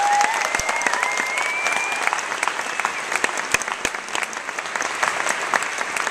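Audience applauding after a speaker is introduced, with a high, thin sustained tone rising slightly over the clapping in the first two seconds or so. The clapping eases off gradually toward the end.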